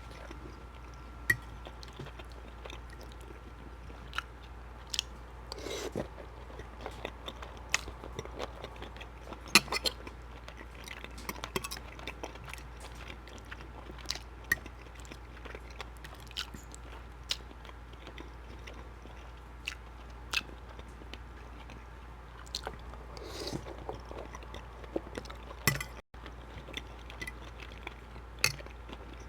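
A person chewing shrimp Alfredo pasta close to the microphone: wet, mouth-full eating sounds with many short sharp clicks scattered throughout.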